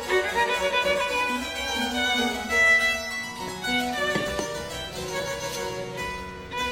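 Background music led by violin or fiddle with plucked and bowed strings, moving through quick melodic notes.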